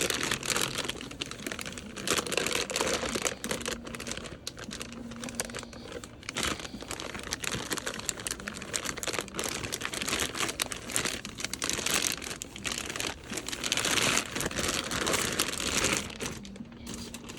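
Packaging crinkling and rustling as it is pulled off and unwrapped by hand, a dense run of irregular crackles.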